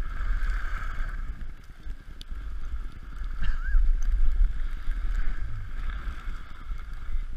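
Wind buffeting a GoPro's microphone as its wearer rides down a snowy slope: a steady low rumble with the hiss of sliding over snow, growing louder about three seconds in.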